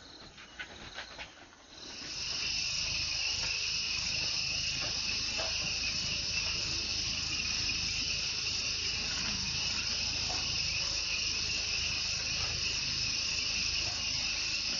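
Steady chorus of night insects, a continuous shrill drone in two high pitch bands, setting in about two seconds in after a few faint rustles and clicks.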